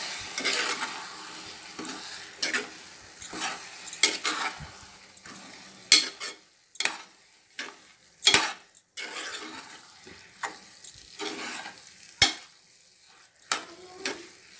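A metal spoon stirring and scraping soaked broken wheat and moong dal through in a metal pressure-cooker pot: a grainy scraping that fades over the first few seconds, broken by sharp clinks of the spoon against the pot, three of them louder than the rest about 6, 8 and 12 seconds in.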